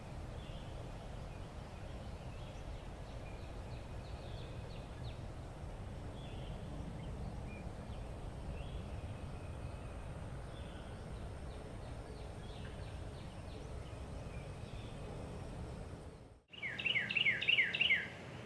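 Outdoor ambience: a low steady rumble with faint, scattered bird chirps. Near the end, after a brief dropout, a bird sings louder and closer, a quick run of about six falling notes.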